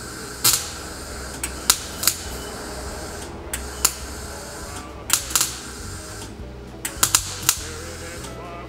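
Welding torch laying short tack welds on a rusty steel petrol tank to close its rust holes: about a dozen short, sharp crackling bursts at irregular intervals, some in quick clusters, over a steady low hum.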